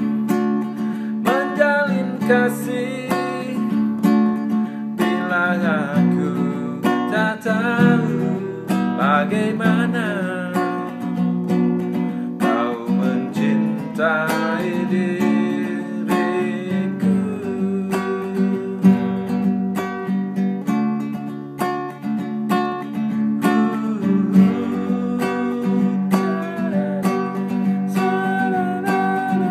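Acoustic guitar strummed as chord accompaniment, with a man singing along.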